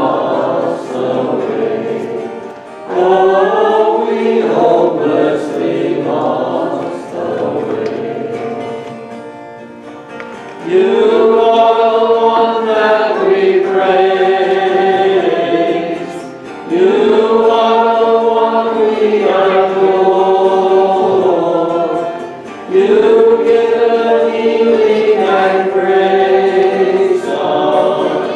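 Slow hymn sung to guitar accompaniment, the voices holding long notes in phrases of about six seconds, with a softer stretch around eight to ten seconds in.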